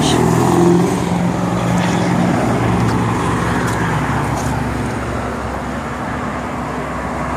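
Motor vehicle noise: a steady low engine hum and road rumble that slowly fades after about four seconds.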